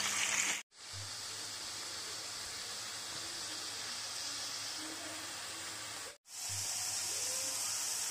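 Potato wedges frying in hot oil in a nonstick wok: a steady sizzle. It cuts out briefly twice, just under a second in and again about six seconds in.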